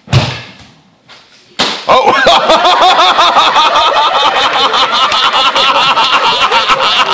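A hard slap of a body landing a breakfall on the judo mats right at the start. Then, from about a second and a half in, loud, sustained applause with cheering and whooping from the watching students.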